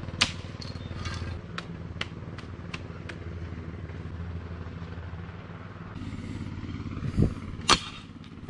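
Excavator's diesel engine running steadily at work, with a series of sharp clicks and knocks in the first few seconds and two louder knocks about seven seconds in.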